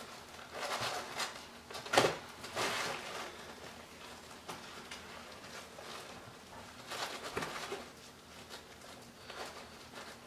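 Webbing strap on a fabric EMP bag being pushed through its side rings and pulled along: intermittent rustling and scraping of strap and fabric, with one sharp knock about two seconds in.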